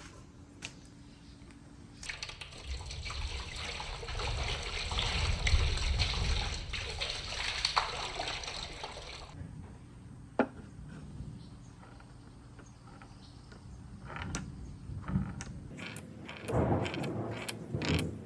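Marbles rolling and rattling through a wooden marble run: a dense rolling rumble full of small clicks starts about two seconds in and cuts off suddenly some seven seconds later. A single sharp click follows, and near the end come scattered wooden clacks and knocks of marbles.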